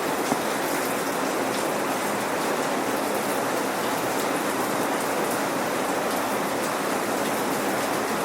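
Steady rain falling on a hard surface, a dense even hiss of many drops pattering, without thunder.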